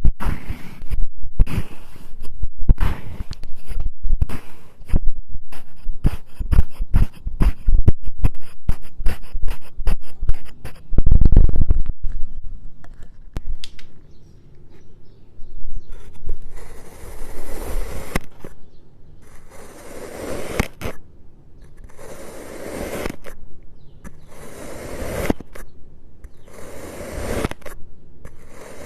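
Kinetic sand being cut and scraped: a dense run of short, crisp crunching strokes for the first half, then slower, longer slicing scrapes every two to three seconds.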